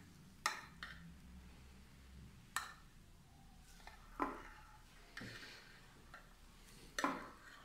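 Metal spoon clicking against a white ceramic dish while spreading a layer of cream: about five sharp, irregularly spaced clicks, with faint scraping between.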